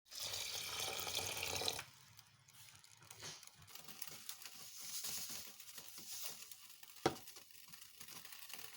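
Kitchen water running for about two seconds, then quieter irregular crackling and patter while rice is being cooked, with one sharp click about seven seconds in.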